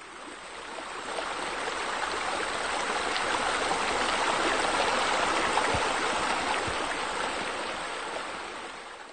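Steady rush of splashing water from a pool's bubbler jets. It swells over the first few seconds and fades toward the end.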